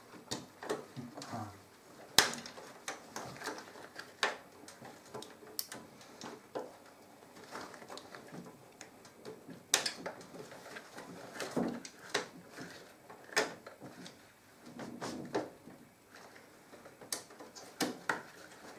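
Scattered sharp clicks and taps with soft rustling as rubber-gloved hands push a DDR3 RAM stick into its motherboard slot and brush against the cables inside a desktop PC case.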